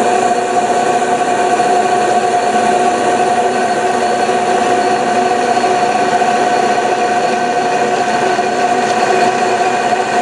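Metal lathe running with its automatic carriage feed engaged while a boring bar cuts the bore of a cast aluminium wheel. It gives a steady, loud mechanical whine with one strong high tone.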